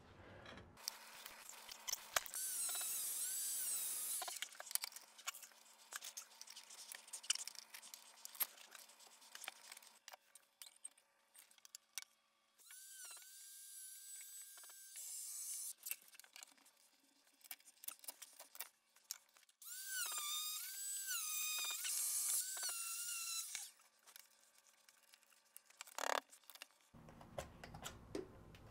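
Handheld power saw cutting ceramic tile in three short runs of a few seconds each, its high whine wavering in pitch, with scattered small clicks and knocks between runs.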